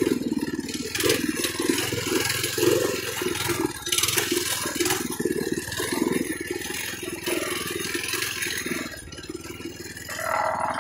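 TrailMaster MB200 mini bike's single-cylinder four-stroke engine running while the bike is ridden over rough, rutted grass, its note surging and easing unevenly with the throttle.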